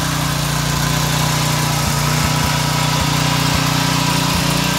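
Briggs & Stratton 875-series single-cylinder pressure-washer engine running steadily at full governed throttle with vegetable oil as its lubricant in place of motor oil, running smoothly.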